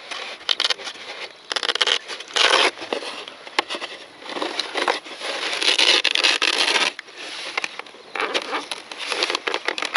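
Rustling and scraping as hands shift a LiPo battery and its leads inside a foam model jet's fuselage to move the balance point forward. The noise comes in irregular bursts with a few sharp clicks, the longest burst in the middle.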